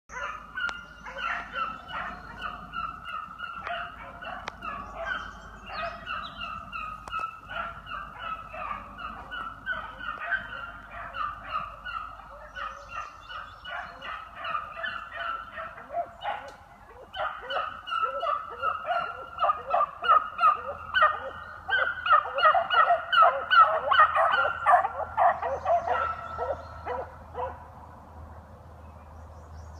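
A pack of beagles giving tongue on a trail: rapid, overlapping short bays and yelps from several hounds, swelling louder past the middle and thinning out near the end.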